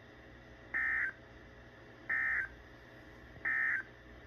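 Three short, identical bursts of warbling data tones from an Emergency Alert System SAME signal, evenly spaced about a second and a half apart: the end-of-message code that closes a weather radio warning.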